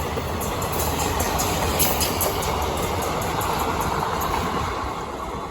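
Train rolling past close by: a steady rumble of wheels on track, with a quick run of clicks as wheels cross rail joints, easing off slightly near the end. No horn is heard.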